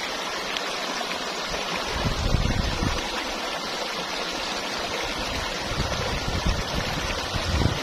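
Shallow river rushing over rocks in a riffle, a steady rushing hiss. Bouts of low rumble come in about two seconds in and again over the last few seconds.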